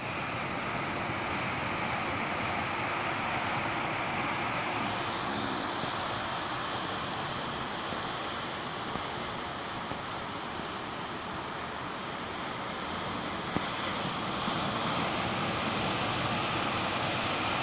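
Surf breaking and washing over rocks and concrete breakwater blocks: a steady rush of sea water.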